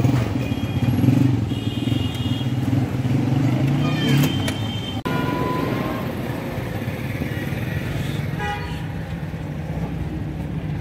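Street traffic: a steady motor rumble with a few short horn toots.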